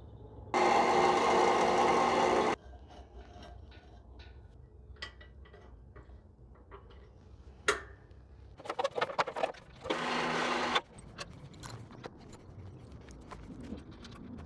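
A small electric motor runs in two bursts, about two seconds and then under a second, each starting and stopping abruptly. Between them come a sharp knock and a rapid run of clicks.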